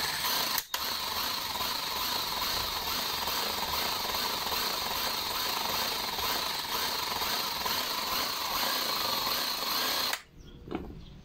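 Cordless impact driver running continuously, spinning a valve in a motorcycle cylinder head to lap it into its seat. It breaks off briefly just under a second in and stops about ten seconds in.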